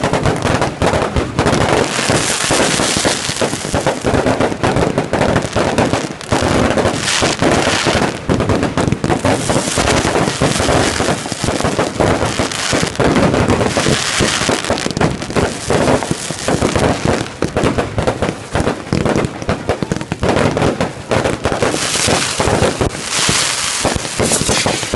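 Fireworks going off in a dense, continuous crackle of rapid bangs, with louder bursts every few seconds.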